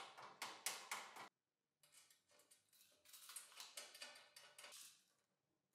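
Faint clicks and light ticks of hands working on a steel table-saw stand, screwing its levelling feet into the base, in two short spells.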